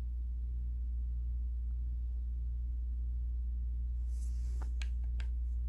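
Steady low electrical hum at an even level. A few faint clicks and a brief rustle come about four to five seconds in.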